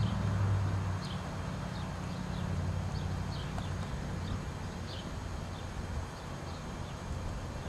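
Mare and foal walking on sand, their hooves making soft steps, over a steady low hum. Short high chirps repeat every second or so.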